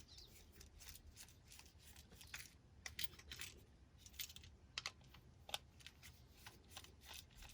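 Faint, irregular clicks and scrapes of a screwdriver loosening the terminal screws on a GFCI outlet.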